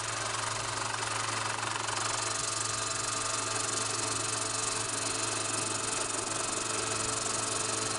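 Radio-controlled scale Bell UH-1 Iroquois model helicopter running. It makes a steady hiss with several held high tones over a low hum.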